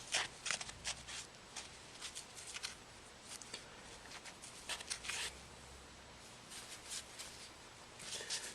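A cloth wiping a bare smartphone frame with alcohol: a run of short, irregular scratchy rubbing strokes.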